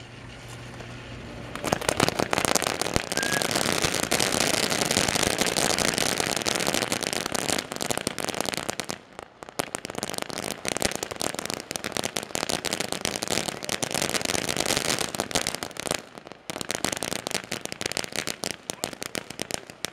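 Ground fountain firework spraying sparks with a dense crackle, starting about two seconds in and dipping briefly twice.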